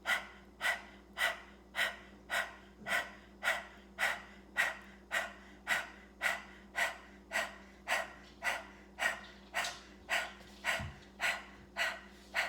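Panting dog breath, a kundalini yoga pranayama: rapid, rhythmic panting through the open mouth, about two short breaths a second at an even pace.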